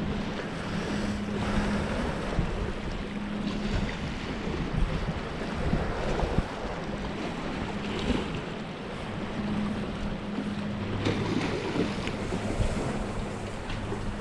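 Small bay waves lapping and splashing against a rock jetty, with wind buffeting the microphone. A faint low hum comes and goes underneath.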